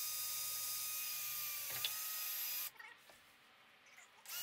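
Cordless drill running at a steady speed, boring a quarter-inch hole in the boat's console, with a click a little before the middle. It stops for about a second and a half near the end, then starts again slightly higher in pitch.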